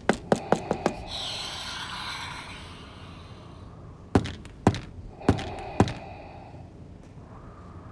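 A quick run of about six sharp clicks, then a faint hum, then four more sharp clicks about half a second apart.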